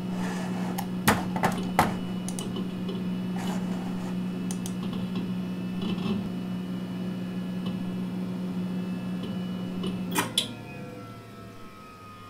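NeXT Cube computer shutting down: its steady hum runs under a few sharp mouse clicks, then about ten seconds in a clunk cuts the power and the hum stops, leaving a faint falling whine as the machine spins down.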